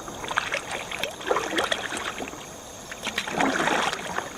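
Kayak paddle strokes splashing in moving river water, in irregular bursts, the biggest about a second in and near the end.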